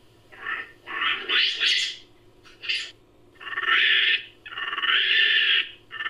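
Sound effect for a macaque-like creature: a run of monkey-like calls, several short ones at first, one rising higher about a second and a half in, then two longer, louder calls in the second half.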